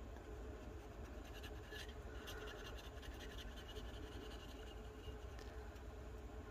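Faint scratching of an alcohol marker's chisel nib stroking over a gloss spray-painted tumbler, in short repeated strokes.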